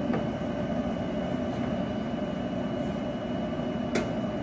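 A dehumidifier running with a steady hum and a thin, constant high whine. Two light clicks from parts being handled, one just after the start and one near the end.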